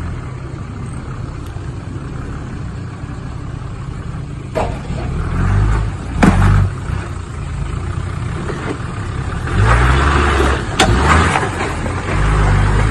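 Toyota Land Cruiser 80-series 4x4's engine working under load as it crawls over rocks, with a steady low rumble that swells in heavier surges several times. A few sharp knocks stand out over it.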